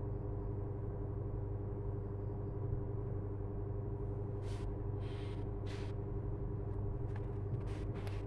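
A steady low mechanical hum with a few fixed tones in it, and a few short rustles and light clicks from about halfway through.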